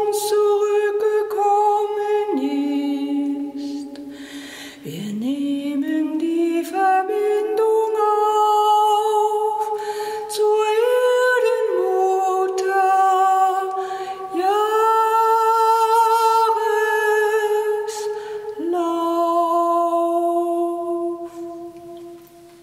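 A voice singing or humming a slow, wordless melody a cappella, in long held notes with vibrato and slow glides between them. The last note fades away near the end.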